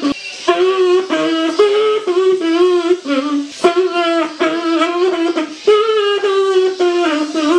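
Electric kazoo hummed into and played through a small Yamaha guitar practice amplifier, buzzing out a tune of short notes with brief breaks between them.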